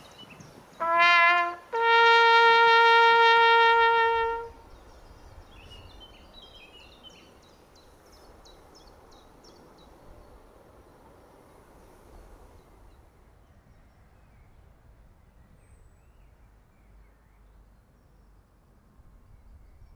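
Trumpet signal that opens the two minutes' silence: a short lower note, then one long held higher note. It gives way to faint birdsong and quiet outdoor ambience.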